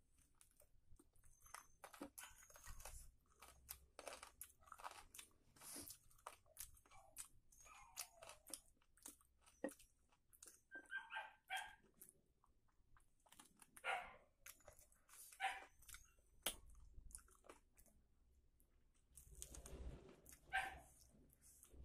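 Faint close-miked hand-eating sounds: wet lip smacks, finger licking and chewing of curry-soaked rice, heard as a string of short clicks and smacks with a few brief voiced mouth noises.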